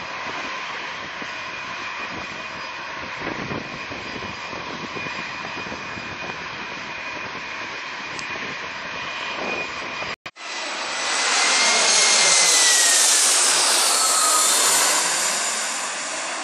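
Jet airliner engines: a steady jet noise with a high whine, then, after a brief dropout about ten seconds in, a louder jet passing close overhead, its whine falling in pitch as it goes by.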